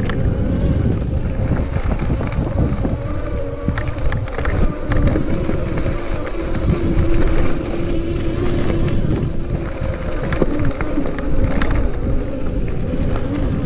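Electric bike with a 48V 1000W rear hub motor being ridden over a rough gravel path: wind buffeting the microphone and tyre rumble, with a steady motor whine.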